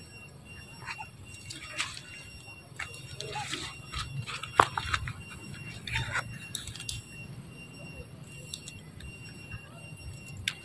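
Macaque biting and chewing a Chinese cabbage stalk: a scattering of short crisp crunches and clicks, the sharpest about four and a half seconds in. A steady high thin whine runs underneath.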